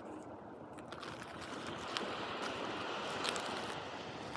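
Sea surf washing on a beach, a steady rushing wash, with a couple of faint clicks about two and three seconds in.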